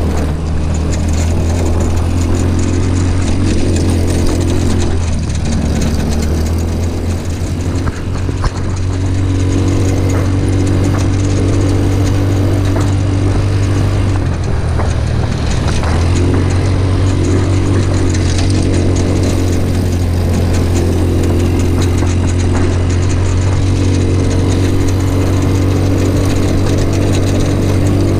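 Off-road go-kart engine running steadily under way, heard from the driver's seat, dropping briefly in pitch twice as the throttle eases. The engine is running with no air filter.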